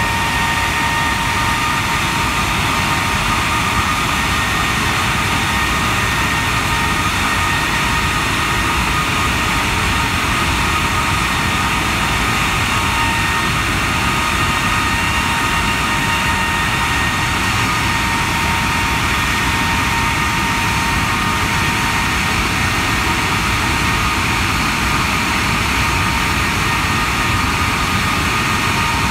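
Rolls-Royce Trent 895 turbofan on a Boeing 777 running steadily at high power during a ground run. A loud, even rushing noise carries several steady whining tones that hold unchanged.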